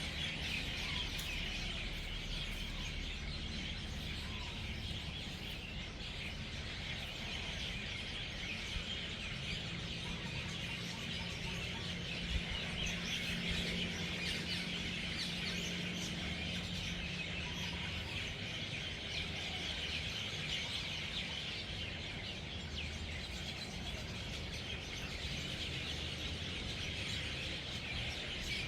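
A large flock of birds chattering together as they settle to roost for the night: a dense, unbroken chorus of overlapping chirps. A low steady hum sounds underneath for several seconds midway.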